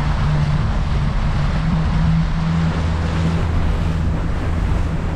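A 70 hp outboard motor running steadily at speed, its low hum stepping up slightly about two seconds in, under the rush of wind on the microphone and spray off the hull.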